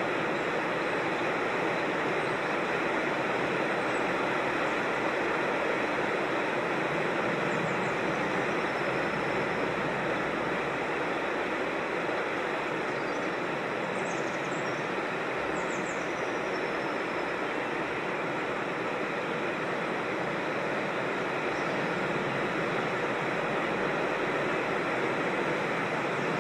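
Creek water rushing steadily over small cascades, with a few faint, high bird chirps about halfway through.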